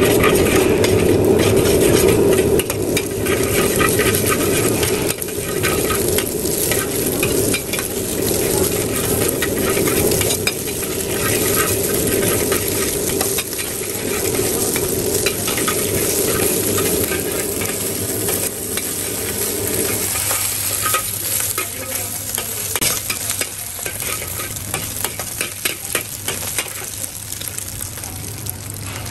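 Metal ladle stirring and scraping shredded cabbage and egg in hot oil in a black wok: steady sizzling with many quick scrapes and taps of the ladle on the pan. A steady hum underneath cuts out about two-thirds of the way through.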